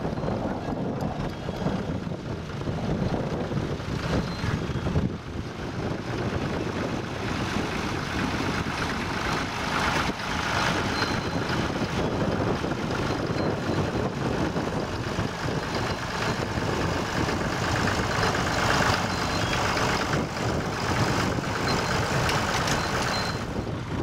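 Vintage Massey Ferguson 35 tractor's diesel engine running steadily under load while it pulls a two-furrow plough through the ground.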